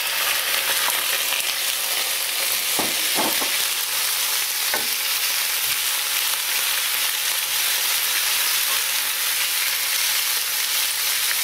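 Victoria perch fillets frying in hot oil in a frying pan, a steady sizzle, with a few light clicks about three and five seconds in.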